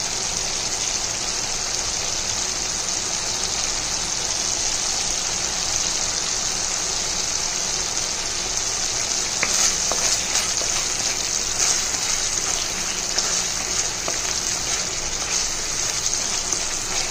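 Tomato-onion masala sizzling in a kadai over a medium-high flame: a steady frying hiss. A few light clicks of a wooden spatula stirring the paste come in the second half.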